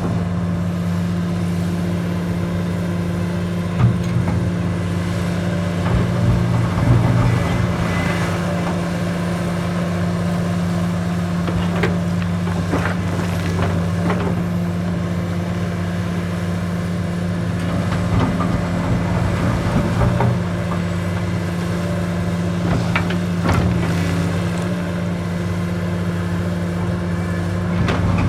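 Komatsu PC450LC-7 excavator's diesel engine running steadily at working revs, with occasional knocks and clatter.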